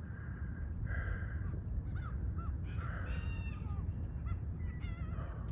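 Gulls calling: several short calls and two longer wavering calls, about three seconds and five seconds in, over a steady low rumble.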